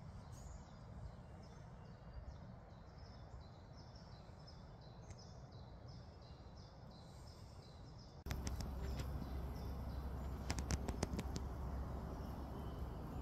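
A songbird sings a run of short, repeated high notes in the woods. About eight seconds in, the sound cuts to a small folding camp stove burning: a low rumble with frequent crackles and clicks.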